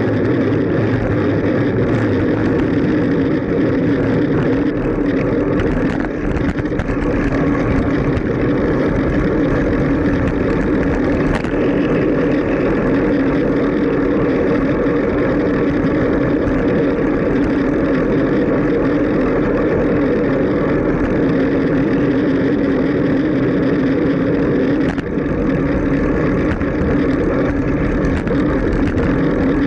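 Steady wind rush and road noise on the microphone of a camera riding on a moving bicycle, with traffic around it.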